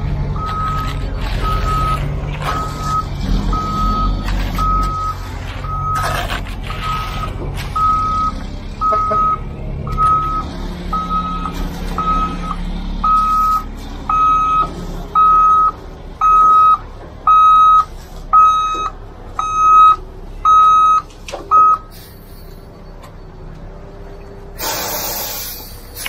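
Concrete mixer truck's reversing alarm beeping steadily, about one and a half beeps a second, over its engine running; the beeping stops about 22 seconds in. A short hiss follows near the end.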